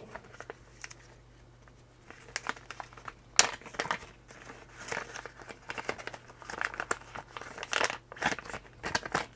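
Crinkling of a pink anti-static plastic bag being handled and opened, with irregular crackles starting about two seconds in and a sharp click at about three and a half seconds.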